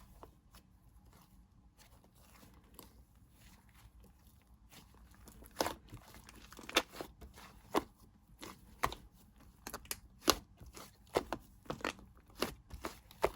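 Slime being mixed and kneaded by hand: quiet at first, then sharp popping clicks from about five seconds in, coming roughly once or twice a second.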